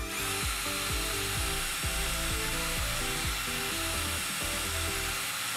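Ridgid cordless drill running at a steady speed with a 1/4-inch bit, boring a hole through the wall. It picks up speed right at the start, then holds a steady whine.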